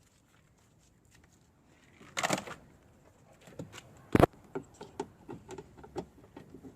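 Small handling noises from working with the camera wiring and parts: a brief rustle about two seconds in, one sharp loud click a little after four seconds, then a run of light clicks and taps.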